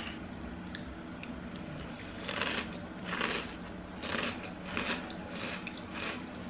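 Close-up crunching of Cinnamon Toast Crunch Churros cereal in milk being chewed, a crisp crunch about every two-thirds of a second from about two seconds in. The pieces are a bit more crunchy than the regular cereal.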